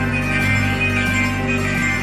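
Instrumental intro music from a karaoke backing track: held chords over a steady low bass note.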